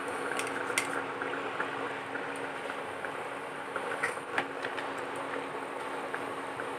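Steady background hum and hiss, with a few light clicks about a second in and again around four seconds in.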